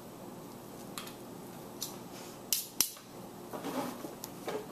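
Metal spoon and fork scraping the seeds and stringy flesh out of a halved spaghetti squash, with scattered short scrapes and sharp clicks of metal utensils; the loudest click comes a little under three seconds in.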